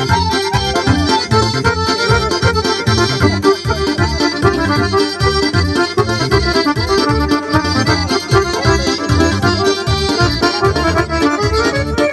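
Piano accordion and a Korg Pa-series arranger keyboard playing a lively tune together live, with a steady beat underneath.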